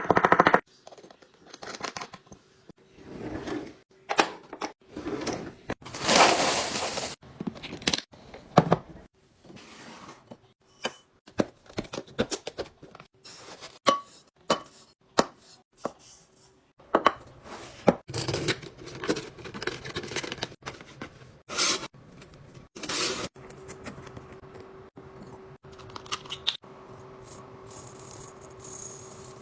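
Kitchen items being handled and put away: a string of clicks and light knocks, with several short noisy swishes. A faint steady hum runs underneath in the quieter stretches.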